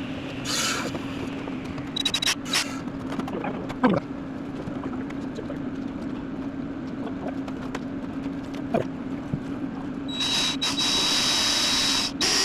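A few light metallic clicks and knocks, then about ten seconds in a power tool starts running steadily with a thin high whine, cutting out briefly once near the end.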